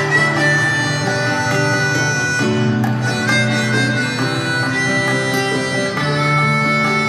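Live band music played over an arena PA: an instrumental passage of sustained chords that change every second or two, with a high held melody line on top.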